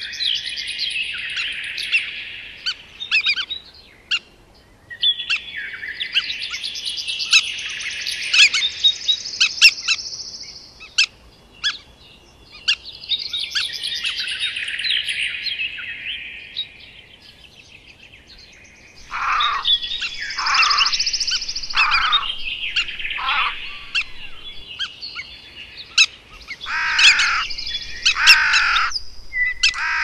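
Forest songbirds singing: three bursts of dense, fast twittering song a few seconds each, with short pauses between. In the second half a bird gives a series of calls that fall steeply in pitch, about one a second, in two runs.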